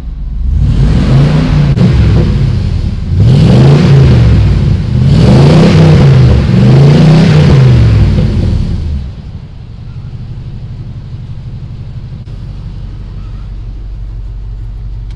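OBS Z71 pickup's V8 revved about four times, each rev rising and falling in pitch, then settling to a steady idle. The exhaust runs through a Borla XR1 muffler with the catalytic converters still on, and the owner finds its note too quiet.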